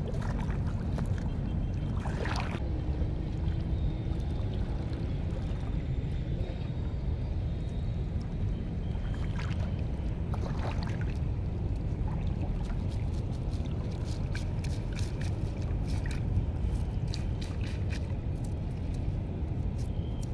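Water splashing and dripping as a wet mesh fishing net is lifted and worked in knee-deep water, the splashes coming thicker in the last few seconds, over a steady low rumble of wind on the microphone.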